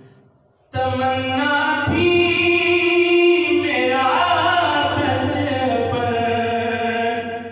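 Solo male voice singing an Urdu naat unaccompanied into a microphone, with long held, ornamented notes. The voice pauses for breath and comes back in under a second in.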